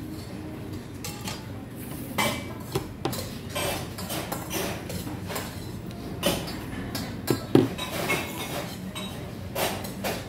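Metal chopsticks and kitchen scissors clinking and tapping against a stainless-steel naengmyeon bowl as cold buckwheat noodles are lifted and cut, in scattered sharp clicks, the loudest a little past the middle.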